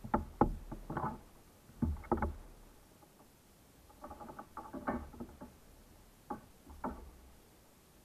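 Irregular knocks and taps on a plastic sit-on-top kayak, in four short clusters of sharp clicks, from handling on board.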